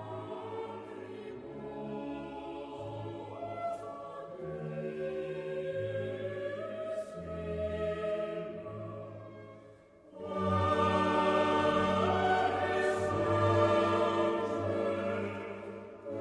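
Choral music: voices holding long notes over low sustained tones. It dies away briefly about ten seconds in, then comes back louder.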